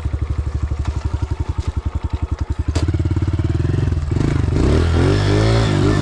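Dirt bike engine running at low revs with an even, steady beat. About halfway through there is a sharp click, then the engine picks up and revs up and down several times.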